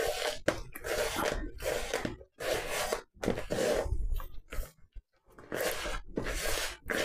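Hands mixing crumbly scone dough in a plastic mixing bowl: rustling, scraping strokes in repeated short bouts with brief pauses between.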